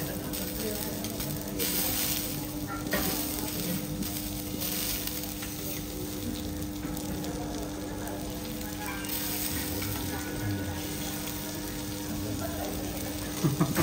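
Food sizzling on a hot teppanyaki steel griddle: a steady frying hiss, with a steady low hum underneath.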